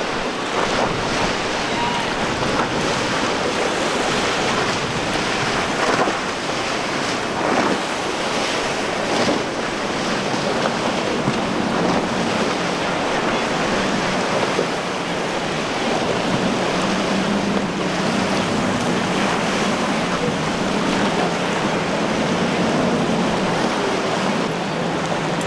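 Wind buffeting the microphone over waves washing through the inlet, a steady rushing noise. About halfway through, a low steady drone from a passing boat's outboard engine comes in under it.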